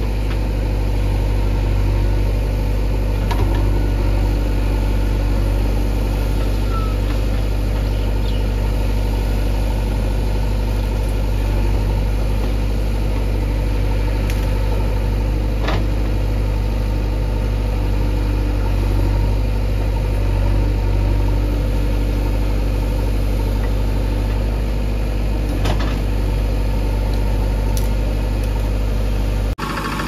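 JCB 3DX backhoe loader's diesel engine running steadily while its rear backhoe arm digs, with a few short sharp knocks.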